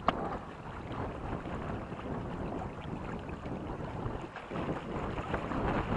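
Wind buffeting the microphone over water rushing and splashing along a sailing catamaran's hull, with one sharp knock right at the start.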